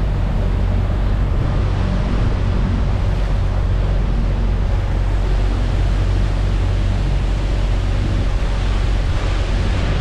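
Steady rushing of water and spray with wind buffeting the microphone, over the low, even hum of an inflatable boat's outboard motor running.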